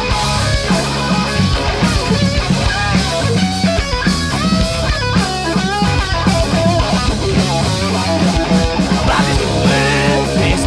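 Alternative punk-rock band playing live: electric guitar, bass guitar and drum kit in a continuous, driving rhythm.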